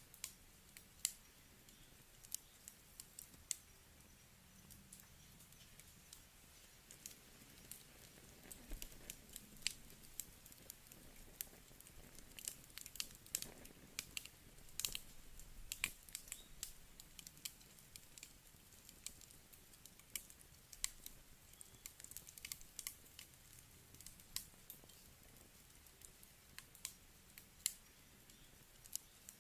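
Wood burning in a campfire, crackling: irregular sharp pops and snaps over a soft hiss, coming thickest about halfway through.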